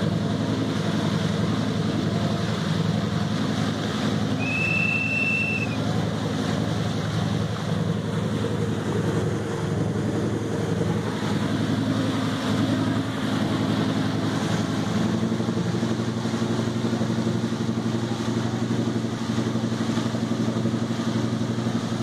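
A boat's engine running steadily under a broad rushing hiss of wind and water, its note stepping up slightly about fifteen seconds in. A single short, high, level whistle-like tone sounds about five seconds in.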